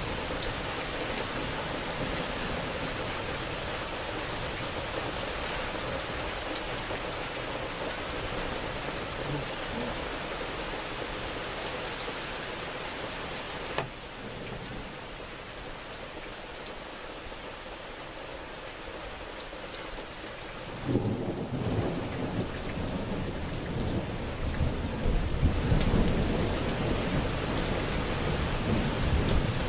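Steady rain falling, its hiss easing a little about halfway through. About two-thirds of the way in, thunder starts rumbling and grows louder to the end.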